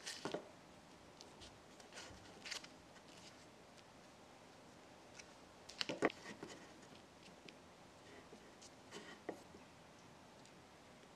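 Faint handling sounds of miniature cooking: fingers pressing pie dough into a small cast iron skillet, and a wooden stick scraping sugared blueberries out of a small glass bowl. Scattered soft clicks and taps, the sharpest about six seconds in.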